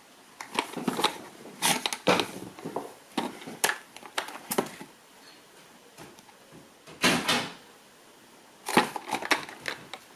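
Packaging being handled during an unboxing: irregular rustles, crinkles and light knocks, with a longer rustle about seven seconds in.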